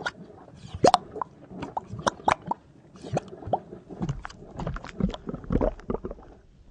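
Liquid-style sound effects for an animated logo: an irregular run of quick plops and short bubbly pitch glides, dying away near the end.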